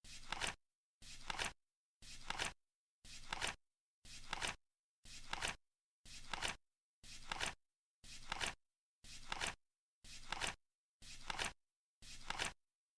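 Flip clock ticking off the seconds: one short noisy flap each second that swells and ends sharply, with silence between.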